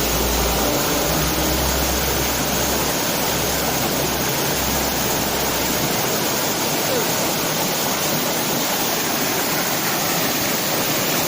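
Waterfall rushing steadily, a loud even wash of falling water. A low rumble sits under it for the first half and stops about six seconds in.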